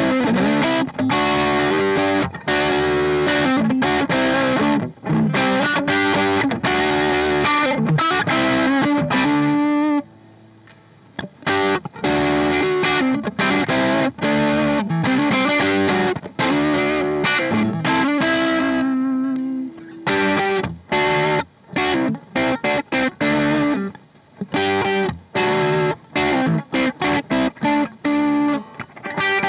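PRS S2 Custom 24 electric guitar played through distortion, strummed chords and picked riffs with short gaps between phrases. The playing drops away briefly about ten seconds in, and a few notes are held and left to ring near the twenty-second mark.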